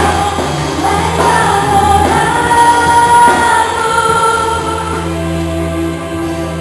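A group of voices singing a gospel worship song over a steady, sustained low accompaniment. It gets quieter over the last couple of seconds.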